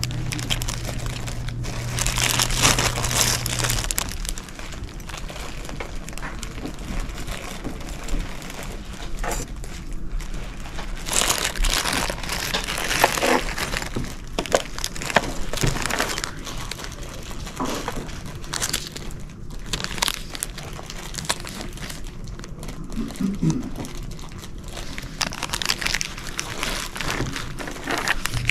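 Plastic zip-top bags of costume jewelry crinkling and rustling as they are picked up and moved about on a table, in irregular bursts throughout. A steady low hum runs under it for the first few seconds.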